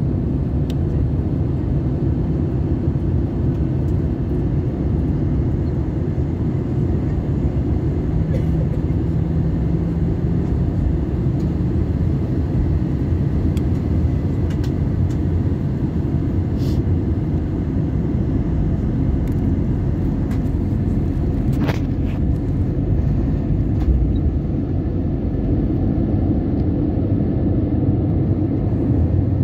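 Steady low cabin noise of an Airbus A320 in flight: engine and airflow noise heard from inside the passenger cabin, with a few faint clicks.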